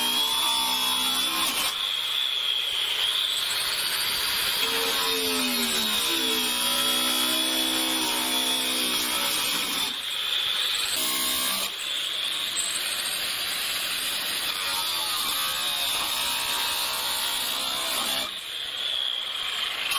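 Electric angle grinder cutting through a thick aluminium downpipe casing: a loud, continuous high whine, with the motor's pitch sagging and recovering as the disc bites into the metal. The sound breaks off and resumes abruptly several times.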